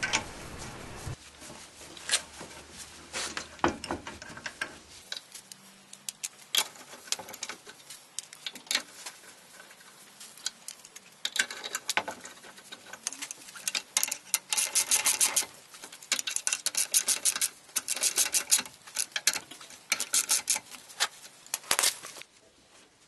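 Socket ratchet clicking as the wheel bolts are run in and tightened: scattered clicks at first, then several runs of rapid clicking in the second half.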